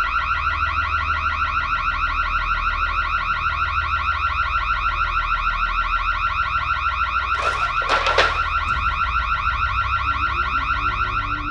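An electronic alarm sounding loudly: a steady, fast-pulsing high beep that cuts off suddenly near the end. A couple of short knocks come through it about two-thirds of the way in.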